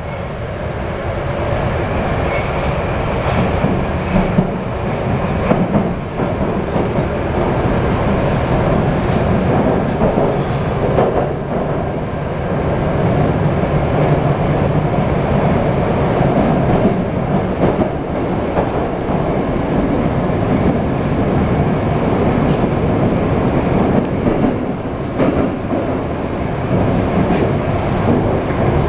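Interior sound of a Moscow metro 81-775/776/777 (Moskva-2020) train car running through the tunnel. It is a steady rumble of wheels and running gear that grows louder over the first couple of seconds as the train picks up speed. Occasional sharp clicks come from the wheels over rail joints.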